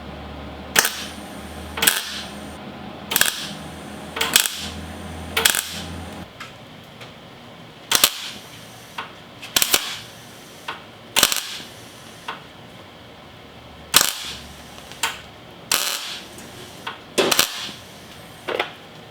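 Wire-feed welder laying a series of short tack welds on sheet steel, about fifteen brief crackling bursts, roughly one a second. The tacks are stacked one on another to fill a gap between a new floor pan and the car's body.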